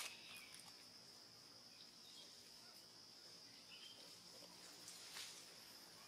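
Faint outdoor ambience: a steady high-pitched insect drone, with a few faint short bird-like chirps and a brief soft noise about five seconds in.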